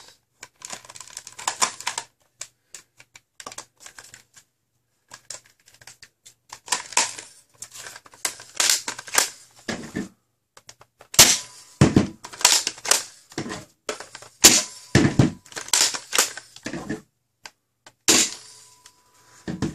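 Plastic clicks and clacks of a Nerf Rival Knockout blaster being handled, loaded and primed. The loading is fumbled because the clip's restrictor peg is still in place. A run of louder sharp clacks comes in the second half.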